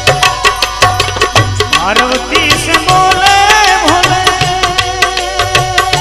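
Instrumental interlude of a Hindi devotional bhajan. A fast, even drum beat plays under a melody line that slides up about two seconds in, then holds and wavers around one note.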